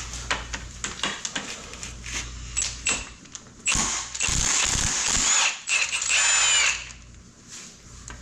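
Metal tools and loose engine parts clinking and knocking during engine teardown, with two longer bursts of mechanical tool noise a little past the middle, the second carrying a wavering high squeal.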